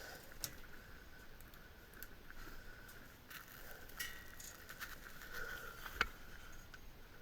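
Faint rustling with a few sharp clicks and knocks of someone moving about and handling things in the space above a drop ceiling, over a faint steady high hum.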